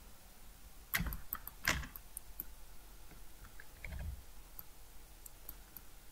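A few faint, sharp clicks from working a computer's mouse and keyboard: two louder ones about a second in and just under two seconds in, then scattered fainter ticks, with a soft low bump about four seconds in.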